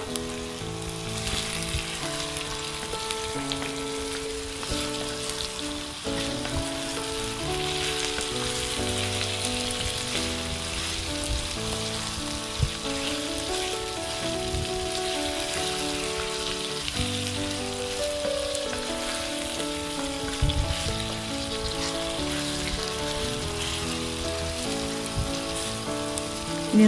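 Raw chicken pieces sizzling steadily in hot oil with shallots in a non-stick kadai, turned now and then with a wooden spatula. A soft melody of background music plays underneath.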